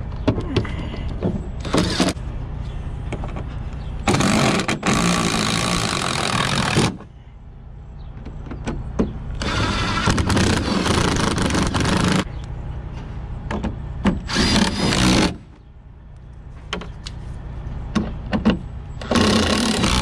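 Milwaukee M18 cordless impact driver on a long socket extension, running bolts into a truck's inner fender panel in four runs of about one to three seconds each, with a short blip before the first. A steady low rumble underlies it.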